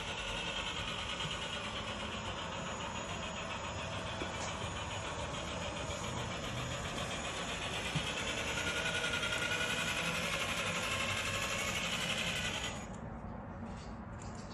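Traxxas Ultimate RC Hauler truck running steadily as it drives across a hard floor, the sound dropping away suddenly about thirteen seconds in as the truck stops.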